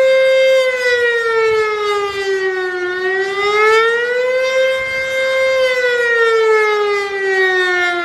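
American Signal Corporation OM-102 single-tone electromechanical siren sounding a rising and falling wail: the pitch holds high, sinks for a couple of seconds, climbs back and holds, then slides down again over the last few seconds.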